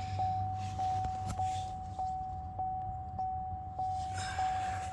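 Chevy Cruze's warning chime dinging over and over, a single steady pitch about every 0.6 seconds, over a low hum.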